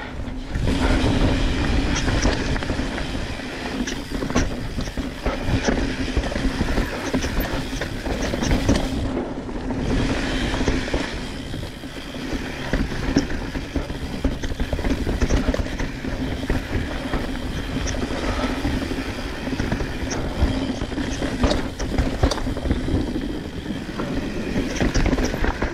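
Mountain bike riding fast down a dirt and gravel trail: tyres rolling and crunching over the ground, with the bike rattling and clicking over bumps and a heavy low rumble throughout. A steady low hum runs under it.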